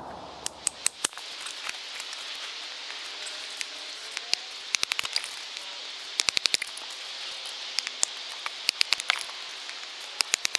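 Quick sharp wood knocks in short clusters of three to six, repeating every second or so, as a large knife is worked down through a small stick on a log chopping block to split it into kindling. A steady high hiss runs behind.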